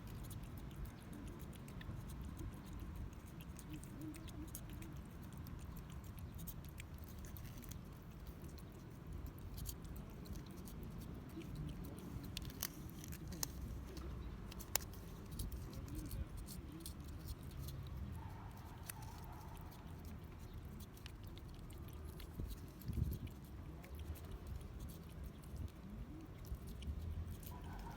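A stray cat eating its food: faint, irregular crunching and chewing clicks, with a louder knock about halfway through.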